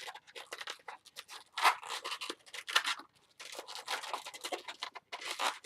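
Inflated latex twisting balloons rubbing and squeaking against each other as they are twisted together, in a run of short scratchy rubs with a brief pause about three seconds in.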